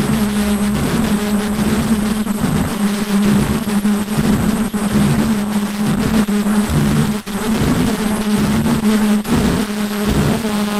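Automatic nonwoven face-mask ear-loop machine running: a steady buzzing hum that drops out briefly again and again, with rapid clicking and clatter from its mechanisms.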